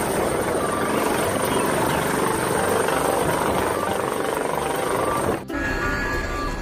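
A real helicopter hovering close by, its rotor and turbine running with a steady high whine over the noise. The sound cuts off abruptly about five and a half seconds in.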